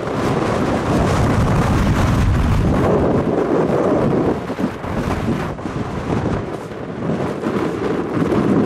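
Strong gusting wind buffeting the microphone, a loud rumbling noise that eases a little midway and builds again near the end.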